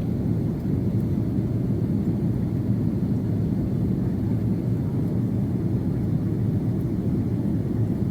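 Steady low rumble inside the cabin of an Airbus A330-300 climbing after takeoff: its two General Electric CF6-80E1 turbofan engines and the rush of air over the fuselage.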